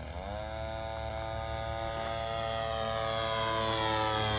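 The 52cc Turnigy side-draft two-stroke gasoline engine of a giant-scale RC Piper Super Cub model plane is running in flight, driving its propeller. Its note drops in pitch right at the start, then holds steady and grows louder as the plane approaches.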